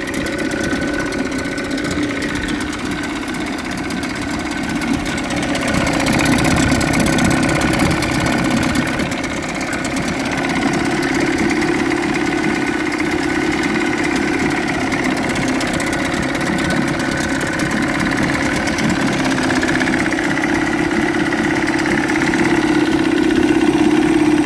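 1978 Evinrude 35 hp two-stroke outboard motor running steadily, a little louder from about six seconds in. It runs on a newly fitted CDI power pack, which cured its lack of spark.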